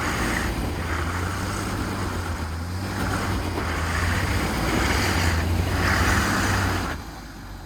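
4x4 truck engine pulling under load at low speed as it works its way up a rocky obstacle, a steady low drone with repeated rushes of noise, easing off about seven seconds in.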